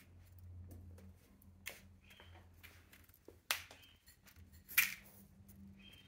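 A ringneck dove pecking and shifting about in a tub of loose seed mix: scattered clicks and brief rustles of seed, the loudest about three and a half and five seconds in.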